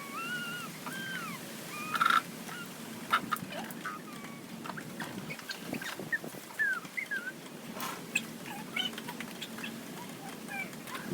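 Birds calling: a run of short calls that rise and fall in pitch. A few sharp knocks come between them, the loudest about two seconds in.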